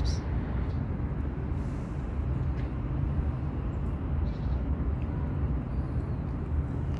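Steady low rumble of outdoor urban background noise, with no distinct events standing out.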